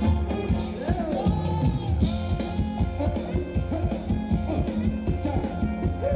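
A band playing upbeat Thai ramwong dance music: a steady drum-kit beat with guitar, and a voice singing at times.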